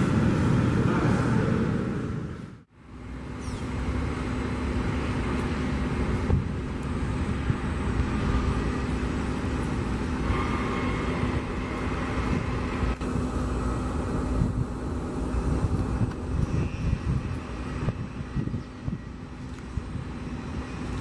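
Airliner jet engines heard from across the airfield: louder for the first two and a half seconds as an Airbus A320 rolls down the runway, then, after an abrupt cut, a Boeing 787-9's engines running at taxi power, a steady rumble with a steady low hum.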